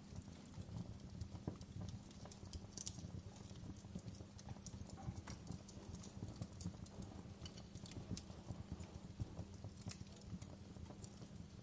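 Wood fire burning in a fireplace, crackling with irregular sharp pops and snaps over a low, steady rumble of the flames.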